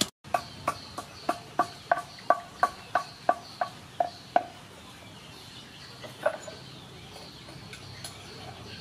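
Wooden pestle pounding garlic and turmeric in a wooden mortar: about three knocks a second, each with a short ringing tone, for about four seconds, then stopping. One more knock comes about six seconds in.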